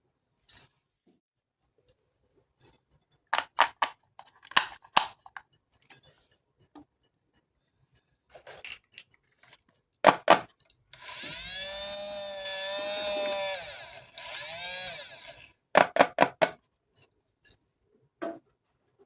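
Small plastic toy kitchen pieces being handled, with sharp clicks and clacks. In the middle comes a drawn-out squeaky rubbing sound, wavering in pitch for about four seconds.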